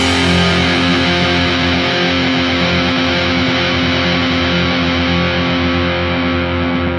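Oi! punk band's distorted electric guitar chord held and left ringing, with no drums; its brightest tones slowly fade away.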